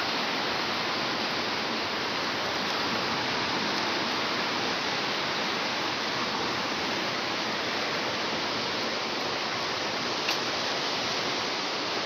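A fast, turbulent river rushing past a rocky bank: a steady, unbroken wash of water noise.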